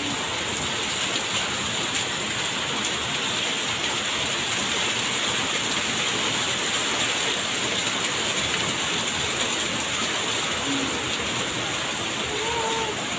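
Heavy rain falling steadily and splashing onto a wet, flooded paved floor.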